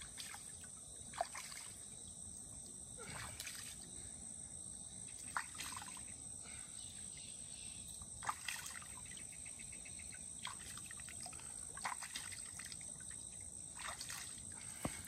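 Hands splashing and sloshing a catfish in shallow river water to wash it, in short splashes every second or two, over a steady high insect buzz.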